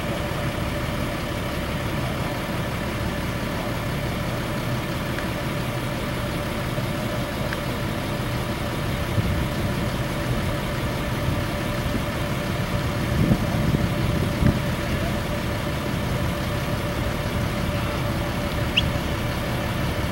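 Motor vehicle engine idling steadily, a low rumble with a steady hum, swelling louder for a moment a little past the middle.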